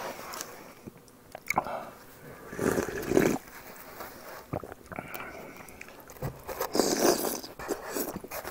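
Close-miked eating sounds of a man eating from a bowl with a spoon: chewing and mouth noises, with two louder bursts about three and seven seconds in.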